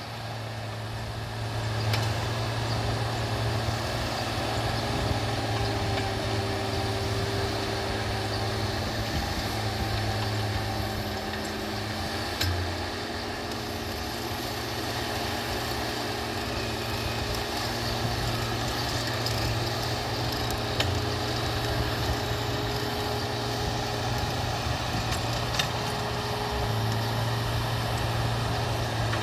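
Farm tractor engine running steadily while driving a PTO-powered high-speed two-stage harrow, getting louder about two seconds in, with a few sharp ticks over it.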